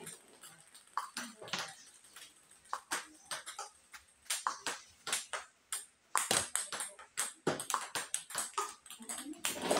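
Table tennis rally: a celluloid ball clicking off rubber-faced paddles and bouncing on the table. The hits are scattered for the first few seconds, then come in a quick, even run of several a second from about six seconds in.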